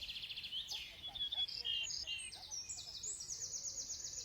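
Several songbirds singing at once, with rapid high trills and repeated short chirps overlapping without a break.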